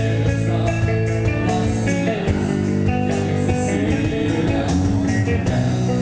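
Metal band playing live: sustained electric guitar chords over drums with cymbals, no singing.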